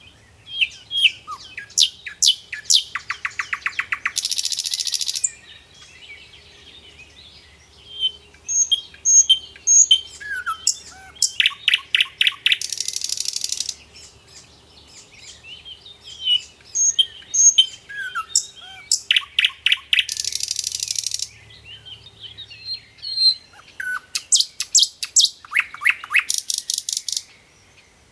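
Birdsong: high chirps, fast trills and short buzzy phrases, the same run of phrases coming round about every eight seconds.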